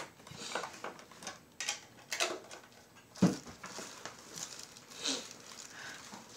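Scattered soft clicks and rustles in a small room, with one sharp knock about three seconds in.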